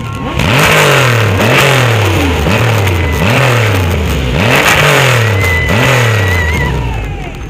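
Motorcycle engines being revved over and over, each throttle blip jumping up and then falling away, about six in a row, with several bikes' revs overlapping.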